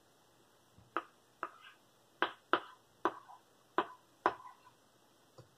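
About seven sharp plastic clicks at uneven intervals of roughly half a second: the round button of a Trust Wizz LCD writing pad being pressed repeatedly in an attempt to switch the pad on after its battery tab is pulled.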